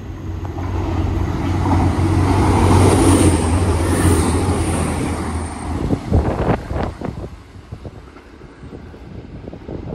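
Class 185 diesel multiple unit passing through the station without stopping. Its engine hum and wheel-and-rail noise swell to a peak about three seconds in, then fade. Its slipstream buffets the microphone with wind from about six seconds on.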